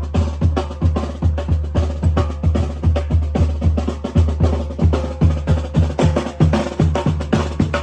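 Mexican brass band (banda) playing, its drums to the fore: a steady beat of bass drum and snare strokes.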